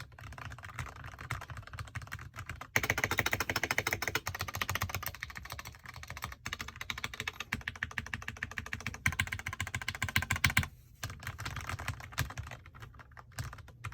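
Fast typing on a Keychron K6 Pro mechanical keyboard: a rapid, continuous run of key clacks, densest and loudest a few seconds in, with a brief pause near the end.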